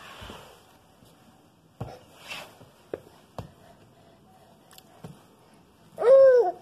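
Baby crawling on a hardwood floor, a few soft pats and taps of its hands on the boards. Near the end, one loud baby vocalization that rises and then falls in pitch.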